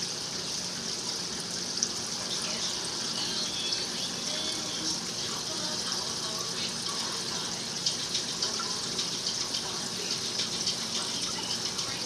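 Aquarium air stone bubbling steadily: an even rush of water and bubbles over a faint low hum. Small crackling ticks join in the second half.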